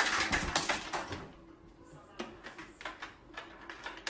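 A burst of clattering and rustling, then after a short lull a run of light clicks and taps.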